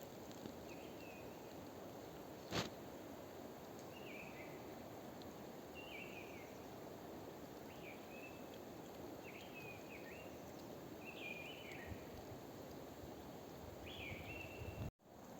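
Faint forest ambience with a bird repeating a short chirping call every one to two seconds, and a single sharp click a little over two seconds in.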